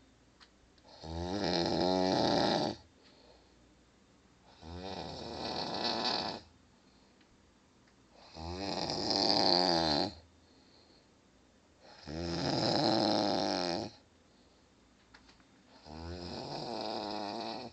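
A man snoring in deep sleep: five long snores, each lasting about two seconds, coming roughly every four seconds with quiet pauses between them.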